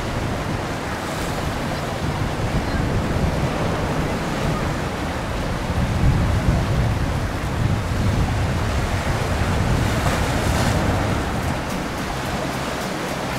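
Wind buffeting the microphone in a gusty, uneven rumble, over the rush of water from a boat under way.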